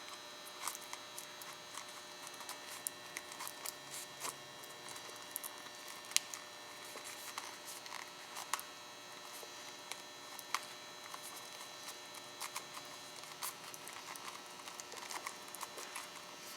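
Scattered light clicks and ticks of plastic heat-shrink tubing and connectors being worked over a wiring harness, over a steady electrical hum.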